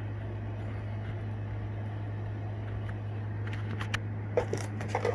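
Steady low hum, with a few sharp clicks and crinkles of plastic fishing-lure packaging being handled in the last second and a half.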